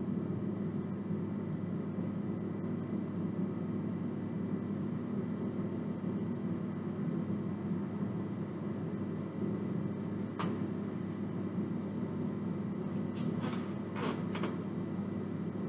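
Steady low hum and hiss from a CRT television playing the silent warning screen of a VHS tape, with a faint click about ten seconds in and a few more near the end.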